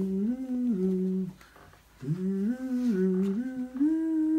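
A person humming a tune in held notes that step up and down, in two phrases with a short breath break about a second and a half in.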